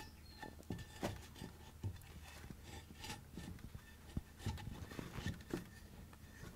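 Faint rubbing and scattered light clicks and taps of hands working a freshly thrown clay pot on a potter's wheel, over a faint steady low hum.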